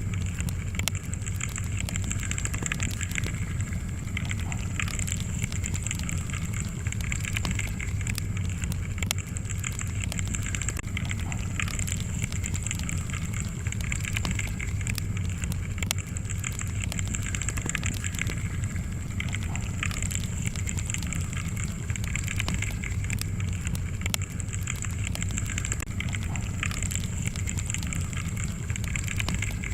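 Wood fire burning in a fireplace: a steady low rumble of flames with frequent small crackles and pops from the logs.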